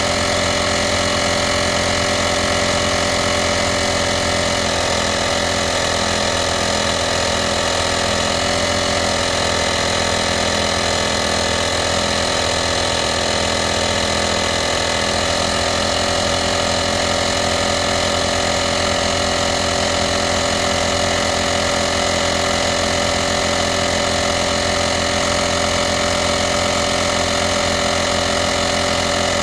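VacLife portable car air compressor (tire inflator) running steadily under load, pumping air into a car tire.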